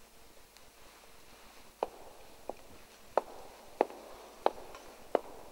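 Slow, even footsteps: six sharp steps about two-thirds of a second apart, starting about two seconds in, over faint room hiss.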